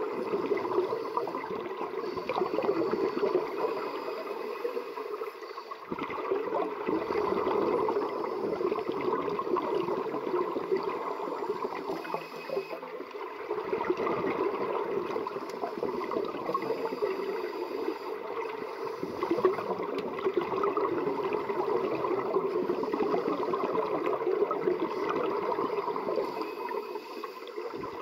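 Scuba diver's exhaled bubbles from the regulator, heard underwater as a steady gurgling rush that swells and eases with his breathing cycle.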